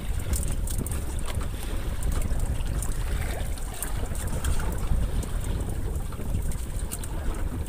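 Wind buffeting the microphone as a small boat rides the waves on open sea, a steady low rumble with the wash of water, broken by scattered faint clicks.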